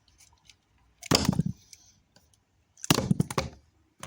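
Two short squirts from a trigger spray bottle, about two seconds apart.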